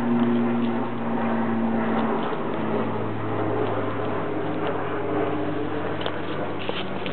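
A steady motor drone whose pitch drops slightly about two seconds in, over a constant hiss, with a couple of short clicks near the end.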